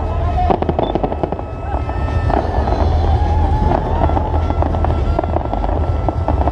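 Fireworks display: a rapid run of bangs and crackling bursts over a steady low rumble, with a wavering high tone through the middle.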